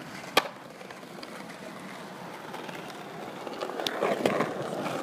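Skateboard trick on a stone ledge: one sharp clack of the board striking the ledge about half a second in, then steady skateboard wheel rolling noise over paving that grows louder near the end.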